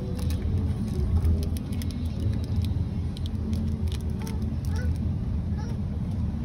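Steady low rumble of a car's interior, with scattered small crinkles and clicks from handling a foil-wrapped KitKat bar.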